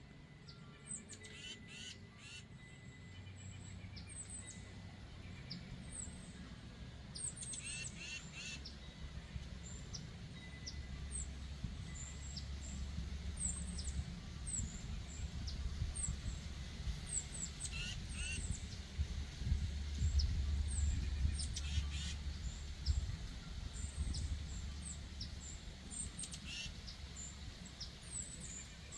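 Birds chirping: many short high chirps repeating throughout, with a few louder call clusters now and then, over a low steady rumble that swells in the middle.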